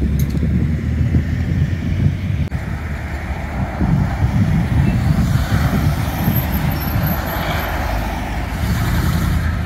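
Cars driving slowly past on a town street, engine and tyre noise swelling as they go by over a constant low rumble.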